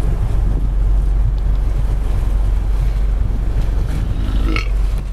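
Motorboat engine running steadily at low speed, with wind buffeting the microphone. A brief high-pitched cry sounds about four and a half seconds in.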